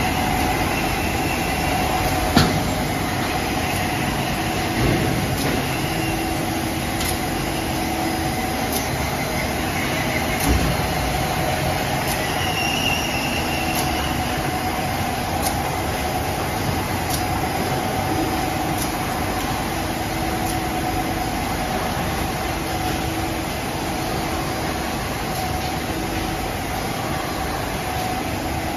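Double roller coating machine for water-based paint running: a steady mechanical hum and rumble from its rollers and panel conveyor belts, with faint regular ticking. There is a sharp click a couple of seconds in and a couple of softer knocks later.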